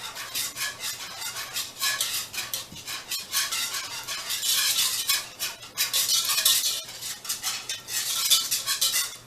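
Thick barbecue sauce ingredients being whisked together in a pan: quick, continuous scraping and light clinking of the utensil against the pan, growing busier about halfway through.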